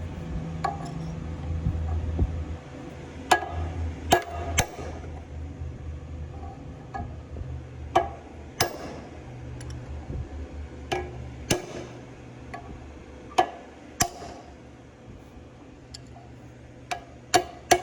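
About a dozen sharp, ringing hammer blows on steel parts of a Gleaner R72 combine's final drive, struck singly and in pairs a second or more apart, as a part is driven into place in the housing.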